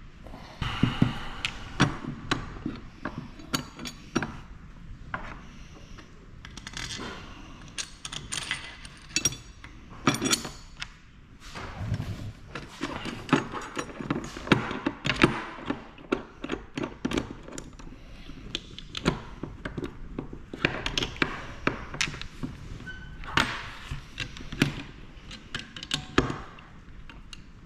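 Irregular metal clicks, knocks and clinks of hand work on a T56 transmission: a hydraulic throwout bearing being fitted and a metal measuring bracket and wrench being set against the bellhousing.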